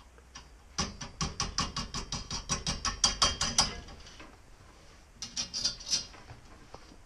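Rapid, regular metallic clicking, about seven clicks a second for some three seconds, then a short second run, as a washer and nut are run onto a bolt on a pump bracket.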